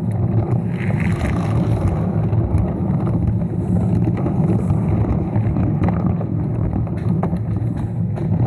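Motorized Lego train running on its plastic track: a steady low motor hum with scattered light clicks.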